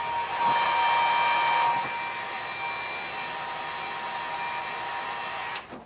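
Electric heat gun blowing steadily, a hiss with a steady whine, heating the bend of a mirror stem to soften it. It cuts off abruptly near the end.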